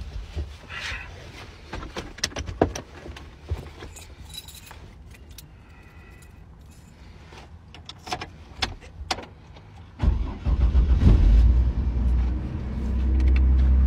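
Keys jangling and small clicks as the car's keys are handled at the steering column. About ten seconds in, the car's engine starts and keeps running with a steady low rumble that grows louder near the end.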